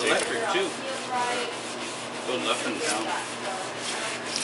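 Fillet knife slicing through halibut flesh: a rasping, scraping sound of the blade drawn through the fish.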